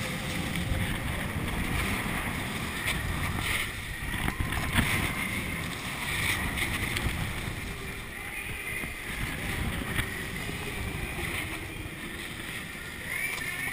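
Skis hissing and scraping over the snow on a run downhill, with wind rushing over the microphone, and a few short, sharper scrapes about four to five seconds in.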